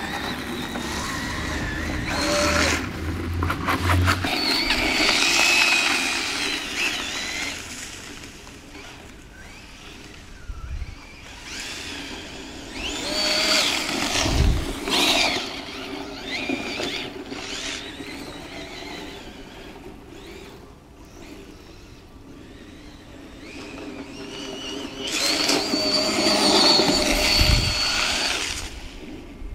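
Electric motor and gear drive of a Tamiya DF-03Ra 4WD radio-controlled rally car whining, rising and falling in pitch as the car speeds up and slows on snow. It is loudest around the start, again about halfway through and near the end, with quieter stretches between.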